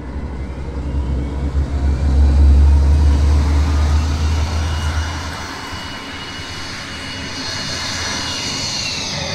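Jet airliner take-off sound accompanying a model airliner's take-off at a model airport. A deep engine rumble swells and peaks in the first half, then gives way to a high jet whine whose pitch falls near the end.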